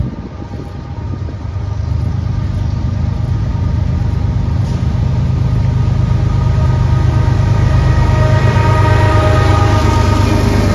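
Union Pacific diesel locomotives leading a coal train, their engines' low rumble growing steadily louder as the train approaches and the lead unit passes close by, with a high whine joining in over the last few seconds.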